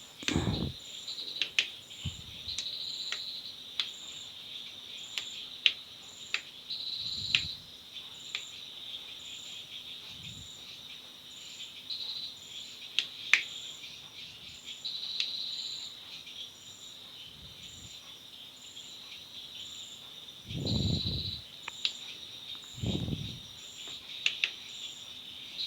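Crickets trilling steadily and high, with regular pulses about twice a second. Scattered sharp clicks and taps run over it, and two low muffled sounds come near the end.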